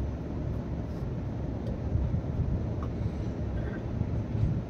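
Steady low rumble of a passenger express train running at speed, heard from inside the coach: wheels on the rails and the coach's running noise.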